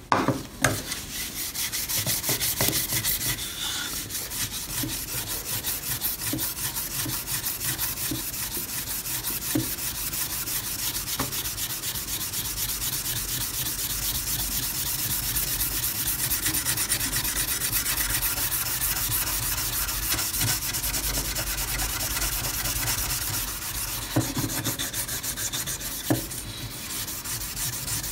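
Rusty Okapi knife blade being scrubbed rapidly back and forth to take off the rust, a continuous scratchy rubbing with a few light knocks of the knife on the table.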